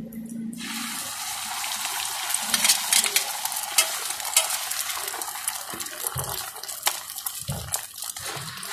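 Beaten egg sizzling in hot oil on a large flat griddle (tawa), the hiss starting about half a second in as the egg hits the metal. Sharp clicks and scrapes of steel tongs and a spatula on the griddle run through it.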